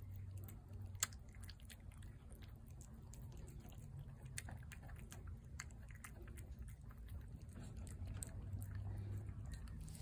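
A feral tabby cat eating wet food from a plate: faint, irregular chewing and smacking clicks, with one sharper click about a second in.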